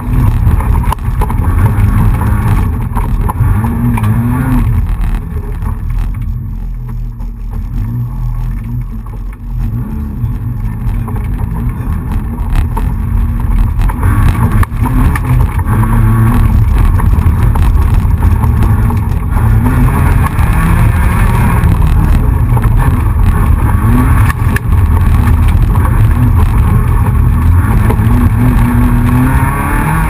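Rally car engine heard from inside the stripped, caged cabin, driven hard at high revs, its pitch rising again and again as it pulls. It eases off for several seconds about a quarter of the way in, then runs hard again.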